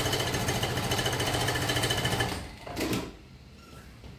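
PROSEW PS-1933B industrial walking foot sewing machine stitching a programmed decorative pattern stitch, its stepping motors driving a fast, even stitching rhythm. It stops a little over two seconds in, followed by a brief short mechanical sound.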